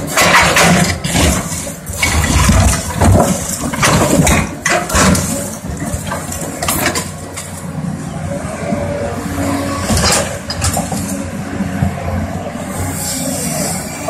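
Caterpillar 320D hydraulic excavator's six-cylinder diesel engine running under load as its bucket pries up and breaks a concrete floor slab. The concrete cracks, scrapes and clatters in repeated sharp knocks, bunched in the first few seconds, with a few more later.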